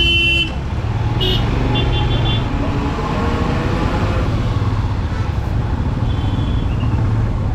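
Steady road rumble of a motorcycle ride through city traffic, with vehicle horns honking: a loud blast at the start, short toots a second or two in, and fainter ones near the end.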